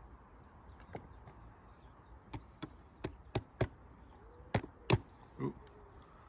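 A hammer driving a small nail, about 2 cm long, into a wooden beehive frame: about nine sharp taps at an uneven pace, the hardest ones past the middle. Birds chirp faintly in the background.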